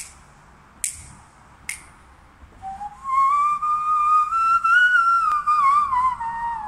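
Two sharp clicks, then a hand-whistled melody played through cupped hands, starting about two and a half seconds in. The tune holds steady notes and glides between them, climbing to its highest note in the middle and stepping back down to a lower held note near the end.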